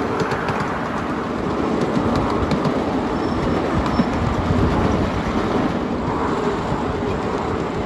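Steady rumble and clatter of a 7.5-inch gauge miniature ride-on train's wheels rolling over the rails, with scattered sharp clicks, heard riding on one of its cars.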